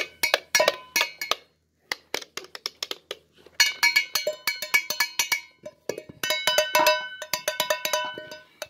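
Kitchen pots and jars tapped and struck as improvised percussion: quick runs of ringing metallic clinks and clanks, with a brief pause about two seconds in and busier clattering in the second half.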